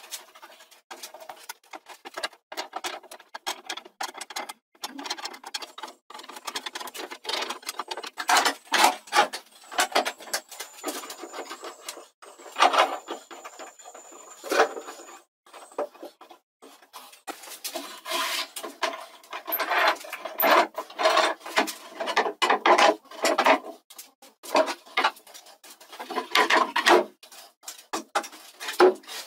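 Irregular scratchy rubbing and knocking of wood: a glue brush scrubbing over wooden strips and the strips sliding and bumping together as they are pressed into a panel and clamped with pipe clamps. A faint thin high squeak comes and goes in the middle.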